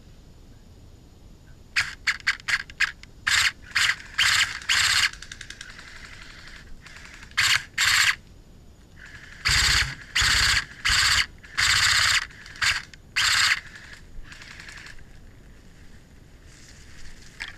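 Airsoft electric rifles firing: a quick string of single shots about two seconds in, then a dozen or so short full-auto bursts until about thirteen seconds in.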